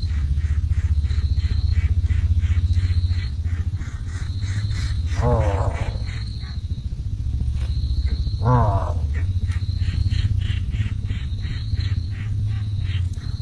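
Insect chirping: a high trill coming in short spells about once a second over a steady low hum, with two short pitched calls about five and eight and a half seconds in.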